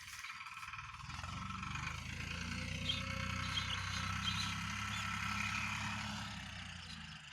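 Farmtrac 45 Supermaxx tractor's diesel engine running under load while pulling a plough: a low drone that grows louder from about a second in and fades near the end, as the tractor comes past and moves away.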